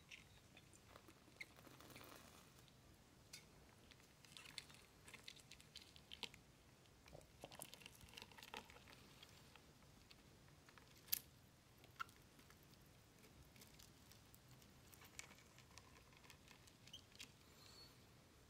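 Faint, scattered ticks and scratches of a lesser white-toothed shrew's feet and claws scrabbling on a clear plastic tub, with one sharper tick about 11 seconds in.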